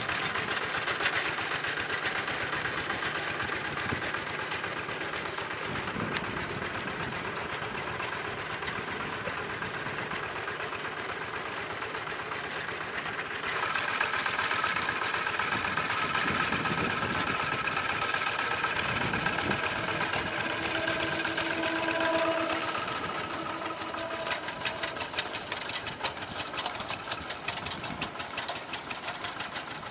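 Old Kubota hand tractor's single-cylinder diesel engine chugging steadily under load as it pulls through a flooded rice paddy. It gets louder about halfway through, then eases off into a plainer rapid pulsing near the end.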